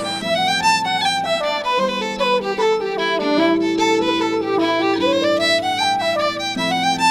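Irish-style fiddle music: a quick fiddle melody running up and down over held accompanying chords that change every second or two.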